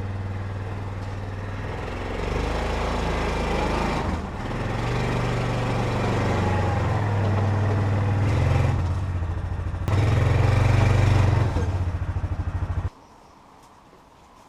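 An engine running under varying load, its low hum stepping up and down several times, then cutting off abruptly near the end.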